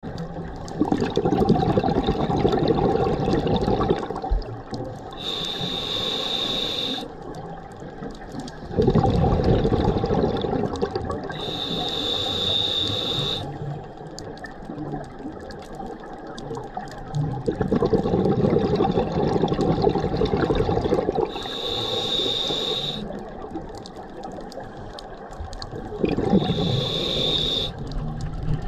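Scuba diver breathing through a regulator underwater, about every eight or nine seconds: each breath is a loud rush of exhaled bubbles followed by a shorter hissing inhale. Four breaths in all.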